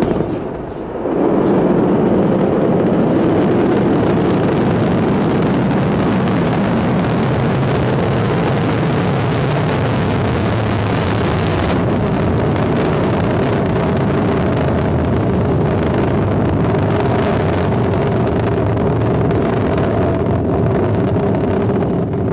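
Ariane 5 launch vehicle's two solid rocket boosters and cryogenic main engine at liftoff: loud, steady rocket engine noise that swells sharply about a second in and then holds as the rocket climbs.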